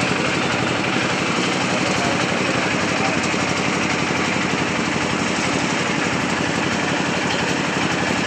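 An engine running steadily, a continuous drone with a fast low pulse and no change in level.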